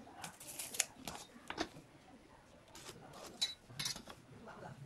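A scattering of light clicks and taps from hand marking tools on a pine board: a steel try square, pen and tape measure being set down and handled, with a short scrape near the end.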